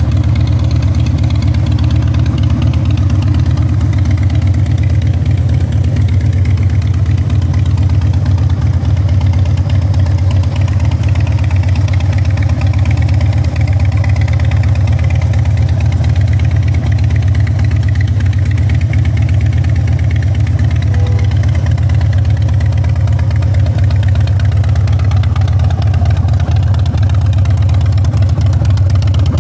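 Harley-Davidson FXDB Street Bob's air-cooled V-twin idling steadily through its stock chrome dual exhaust, with an even low note that neither rises nor falls.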